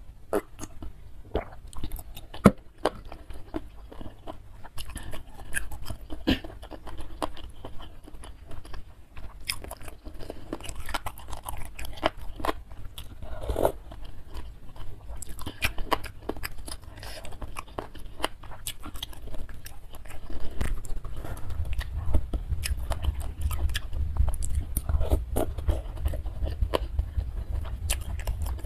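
Close-miked eating of spicy instant noodles in soup with meatballs and boneless chicken feet: wet chewing and biting with many sharp mouth clicks and occasional crunches. A low rumble comes in about two-thirds of the way through.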